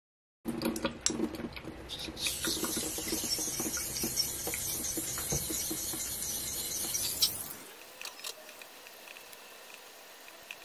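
Blade of a Japanese straight razor scraping across a wet, coarse 220-grit King water stone in honing strokes: a steady, gritty rasp with small clicks. It stops about seven and a half seconds in, leaving a fainter hiss and a few clicks.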